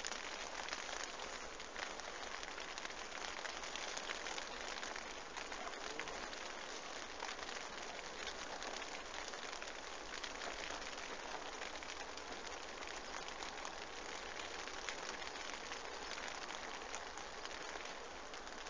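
Steady rain pattering on the fabric of a bivvy shelter.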